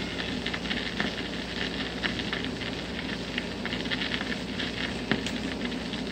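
Surface noise of a 45 rpm vinyl single under the stylus once the music has ended: steady hiss and crackle with scattered sharp clicks.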